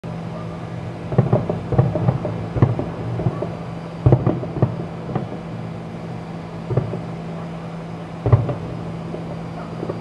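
Distant fireworks going off in irregular booms, about a dozen over several seconds, over a steady low hum.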